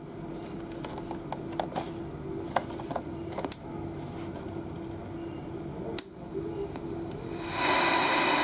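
Several light clicks and knocks as the Souness SNI-F100 portable radio is handled. Near the end its power/volume knob is turned and the speaker switches on with a loud, steady hiss of radio static.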